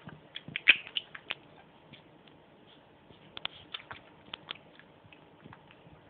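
Sphynx cat at a bird feeder making a run of short, sharp clicks and taps, in two clusters: one about a second in and another from about three and a half to four and a half seconds in.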